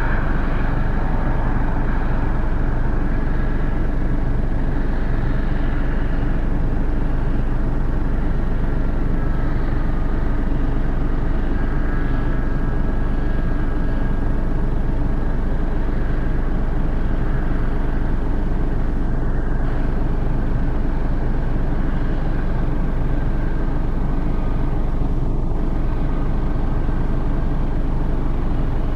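John Deere 6820 tractor's six-cylinder diesel engine running steadily under load while pulling a mounted reversible plough.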